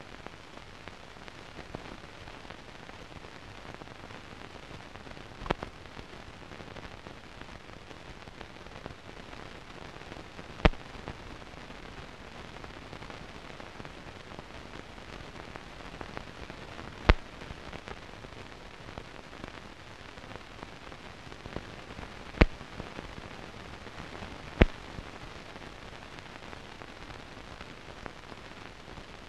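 Steady hiss with five sharp clicks scattered through it: the empty soundtrack of a silent newsreel transfer, carrying only film and transfer noise.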